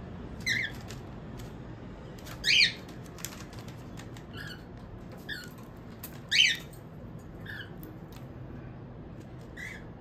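Female cockatiels calling: about seven short chirps a second or two apart. Two of them, a third and two-thirds of the way through, are louder and longer than the rest.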